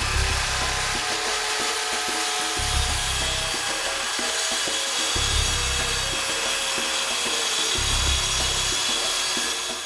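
Handheld circular saw running steadily as it cuts through a sheet of plywood. Background music with a bass note about every two and a half seconds plays underneath.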